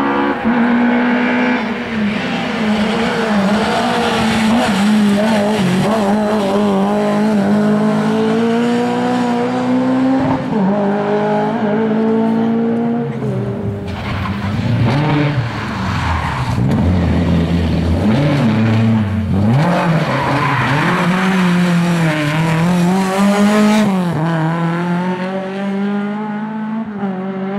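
Rally cars at full racing speed, one after another, engines revving hard with the pitch climbing and dropping back at each gear change as they approach and pass. Tyres squeal as a car takes a corner.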